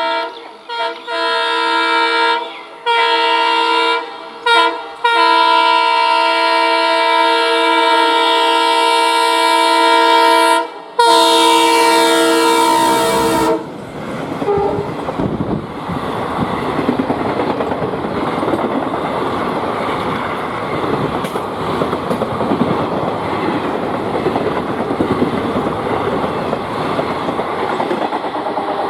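ALCO diesel locomotive horn sounding in a series of blasts: several short toots, then a long blast of about six seconds, a brief break, and another of a couple of seconds that cuts off abruptly. The train then passes at speed, its wheels clattering steadily over the rails.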